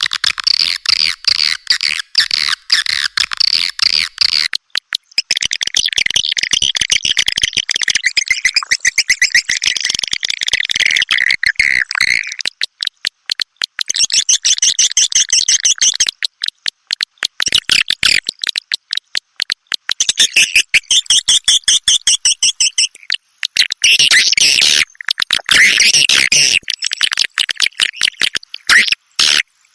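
Swiftlet lure-call recording: white-nest swiftlets chattering in loud, dense, rapid twitters and clicks, the calling sound played from swiftlet houses to draw the birds in.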